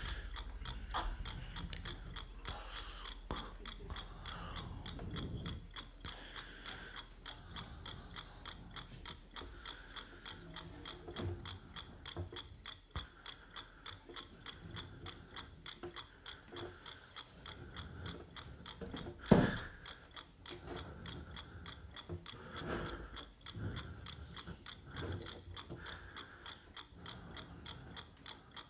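Vocal percussion into a microphone: rapid, steady mouth clicks imitating a ticking clockwork mechanism, over a faint high steady tone. One sharp knock about two-thirds of the way through.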